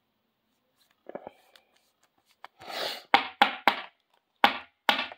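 A sleeved trading card slid into a rigid clear plastic top loader with a brief scrape, then five sharp taps, three quick ones and then two more, as the top loader is knocked on the tabletop to seat the card.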